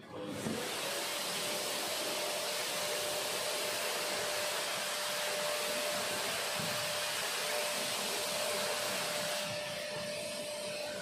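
Vacuum cleaner switched on and running steadily, its motor whine rising briefly as it spins up, while the nozzle is worked over artificial turf.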